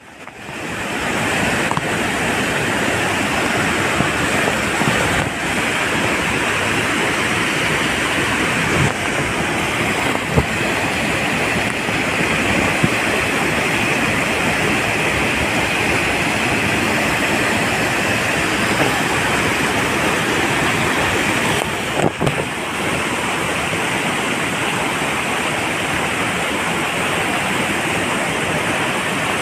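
Loud, steady rush of a waterfall, white water pouring down over rock into a pool, with a brief break about three-quarters of the way through.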